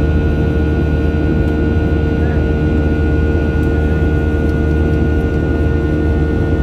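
Boeing 737-700's CFM56-7B jet engines running steadily, a loud even rumble with two steady hum tones riding above it.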